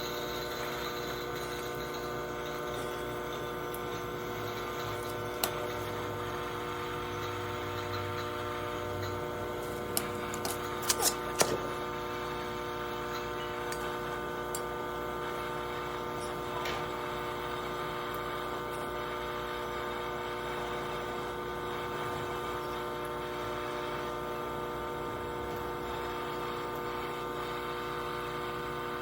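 Steady machine hum made of several fixed tones. A sharp click comes about five seconds in, and a quick run of clicks or taps around ten to eleven seconds in.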